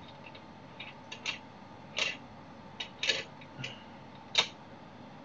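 Handling noise of an Elgato Wave 3 microphone being twisted and unscrewed from a Rode PSA1 boom arm: about eight scattered small clicks and knocks of plastic and metal parts, the loudest near the end.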